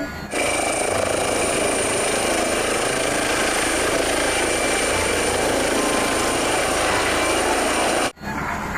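Helicopter running: a steady rotor noise with a high, thin whine over it, which starts just after the beginning and cuts off abruptly about eight seconds in.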